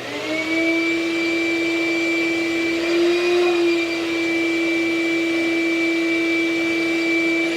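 Craftsman 3.0 peak HP 8-gallon wet/dry shop vac switching on, its motor spinning up in a second to a steady hum with a high whine, and running steadily.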